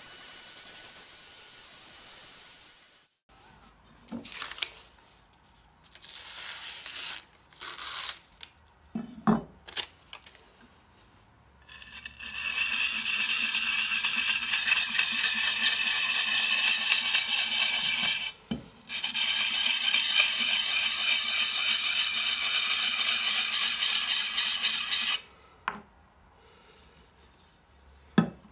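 Steel cleaver edge being honed with a round hand-held sharpening stone: a loud, steady rasping scrape that runs for about six seconds, breaks off briefly, then runs about six seconds more. Before it, an angle grinder with a sanding disc runs for the first few seconds and cuts off, followed by scattered clinks and scrapes.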